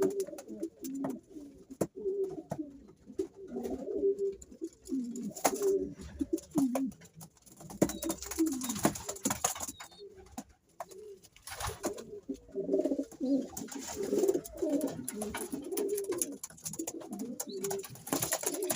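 Domestic racing pigeons cooing, several low warbling coos overlapping and continuing without a break, with scattered sharp clicks among them.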